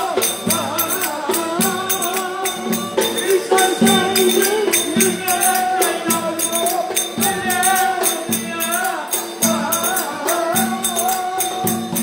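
Live Turkish folk dance music: a davul bass drum beaten in a fast, steady rhythm, with a wavering, ornamented high melody over it.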